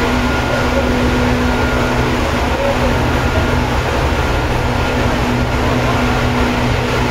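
Running sound inside a Seibu 2000 series electric train car, taken from above the car's line breaker under the floor: a loud, steady low rumble with a few constant hum tones over it.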